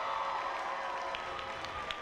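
Crowd cheering, many voices shouting at once, with scattered clapping coming in from about a second in.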